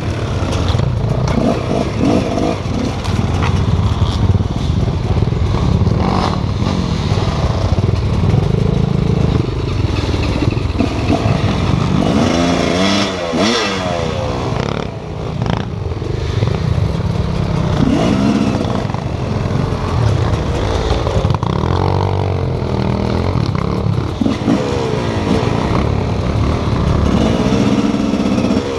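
Enduro motorcycle engine revving up and down again and again, its pitch rising and falling as the bike is ridden slowly over rough forest ground.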